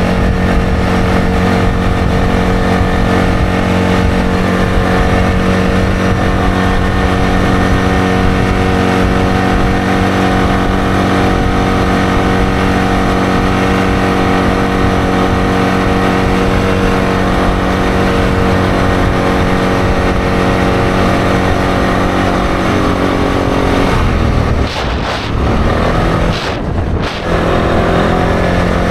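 ATV engine running steadily under way. Near the end the engine note dips briefly and then climbs back up as the throttle is let off and opened again.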